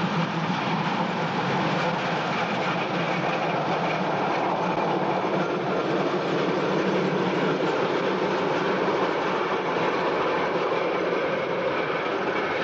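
Tram running along its track: steady noise of the car and its wheels on the rails.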